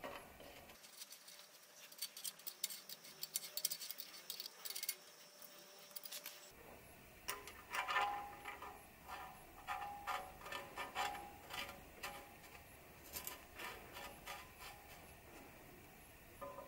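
Handwork on a steel bicycle frame's bottom bracket shell. For the first several seconds there is light scratching and tapping; then, about seven seconds in, a run of metallic clicks and short ringing scrapes as a bottom bracket cup is threaded into the shell by hand.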